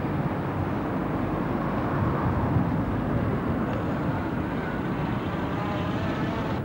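Steady outdoor street noise with a low rumble, as of traffic around a busy car park.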